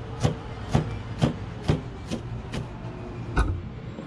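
Kitchen knife chopping onion on a cutting board in even strokes, about two a second, ending with a heavier knock about three and a half seconds in.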